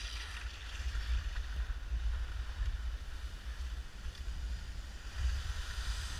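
Wind buffeting the camera's microphone as the skier moves downhill, a gusting low rumble, over the steady hiss of skis sliding on snow.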